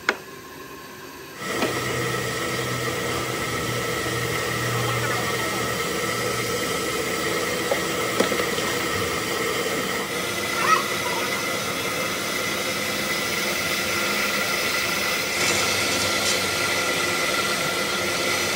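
Stone block-cutting machine running steadily with its water spray hissing, a continuous mechanical hum with a few held tones. It sets in about a second and a half in, after a short quieter moment.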